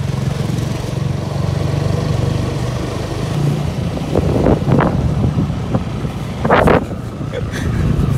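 Motorcycle engine running steadily while the bike is ridden, with a few short bursts of voice about halfway through and shortly before the end.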